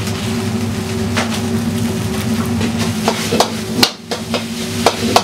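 Sharp metal knocks of cooking utensils over a steady low kitchen hum. A few come in the first half, as noodle strainers are shaken and knocked while draining. A quick cluster follows near the end, as a ladle clanks against a wok.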